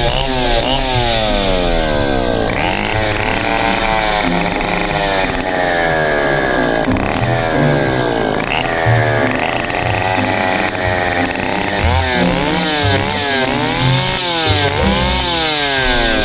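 A small engine revved up and down over and over, its pitch climbing and falling every second or two, with quicker blips near the end.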